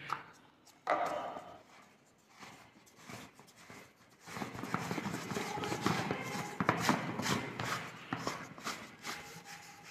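Air compressor's plastic intake filter housing and its perforated metal filter cartridge being handled and fitted together by hand: a short knock about a second in, then a long stretch of quick scraping and clicking from about four seconds in.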